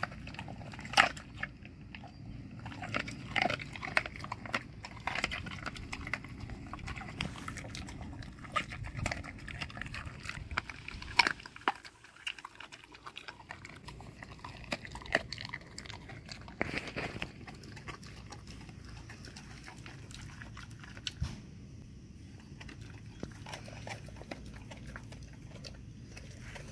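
A Malamute crunching and chewing a raw turkey wing, the raw bone cracking between its teeth in irregular crunches. The crunches come thickly through the first two-thirds and grow sparser near the end.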